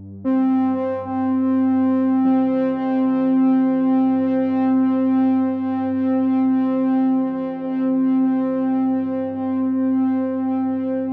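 Background music of held synthesizer chords, growing louder just after the start and shifting chord about two seconds in.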